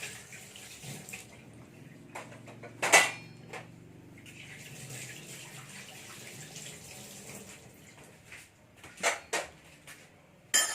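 A cooking utensil clinking and scraping against a pan while gravy is stirred. There are a few sharp knocks, the loudest about three seconds in and three more near the end.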